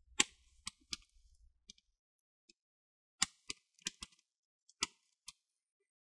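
Plastic snap clips of a Vorago Alpha N3060 laptop's bottom cover clicking loose as a guitar pick is twisted in the seam and worked along it. About a dozen sharp, separate clicks at an uneven pace, the loudest just after the start.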